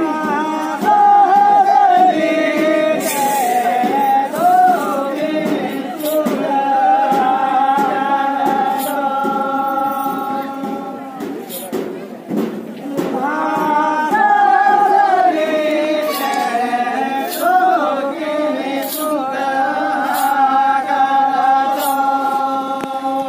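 Santali traditional dance music: a group singing one long melodic phrase, then repeating it after a short break, over scattered hand-drum strokes.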